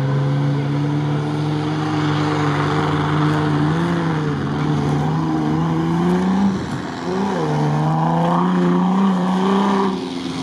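Jeep Wrangler Rubicon's engine pulling hard through sand, its note steady at first, then dipping and climbing again twice around the middle. Near the end the sound drops away.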